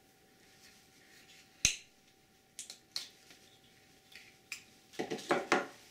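Cutting pliers snipping through heat-shrink tubing with one sharp snap about a second and a half in, followed by lighter clicks of tools being handled and a short clatter of clicks and rustling near the end.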